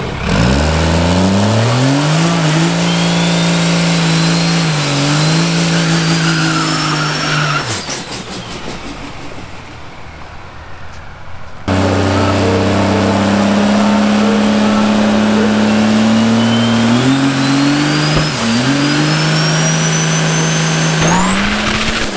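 Diesel Dodge Ram drag truck's engine revving hard with a rising turbocharger whistle during its burnout, then falling away about eight seconds in. About four seconds later it runs loud again and holds high revs on the line. It then launches, its pitch dipping and climbing through gear changes as the turbo whistle rises to a high squeal.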